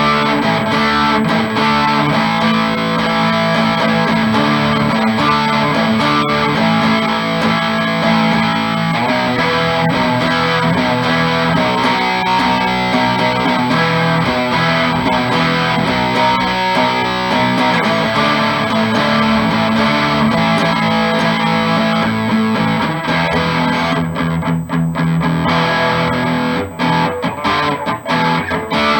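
Electric guitar played through an amplifier on a Seymour Duncan Little '59 mini humbucker in the bridge position, with steady chords and riffs, set to a tone with reduced bass and more treble. The playing turns choppy, with short stops, near the end.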